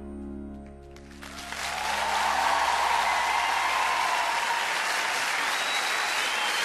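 The held closing chord of the song fades out, and about a second in a studio audience breaks into loud, steady applause that carries on.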